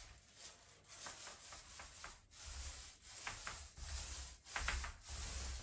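Small paint roller rolling paint onto a wooden door, a faint rubbing swish repeated in quick back-and-forth strokes.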